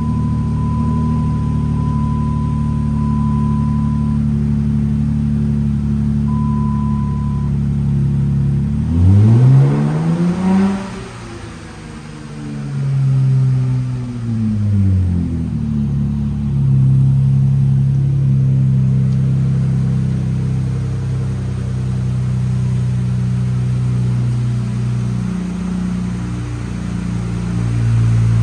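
2013 Dodge Challenger's 3.6-litre Pentastar V6 idling steadily. About nine seconds in it is revved once: the pitch climbs for a couple of seconds, then falls back over several seconds to idle.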